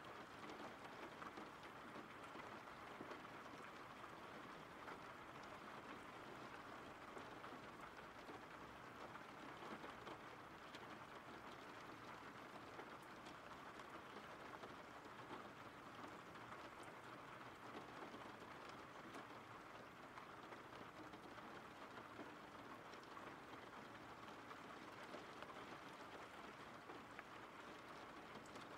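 Faint, steady rain from a recorded rain-sounds ambience track, even throughout.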